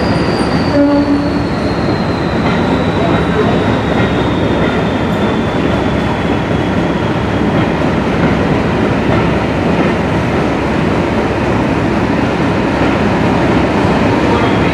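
Coaches of a diesel-hauled train rolling past along the platform: a steady loud rumble and clatter of wheels on rail. A high thin whine falls slowly in pitch over the first several seconds, and a short low tone sounds about a second in.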